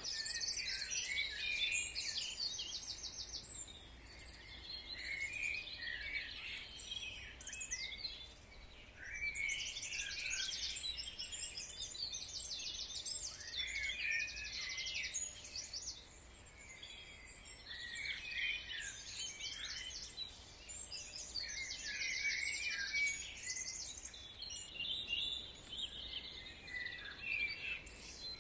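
Small songbirds chirping and singing, with rapid high trills repeating every second or two among scattered chirps and short lulls.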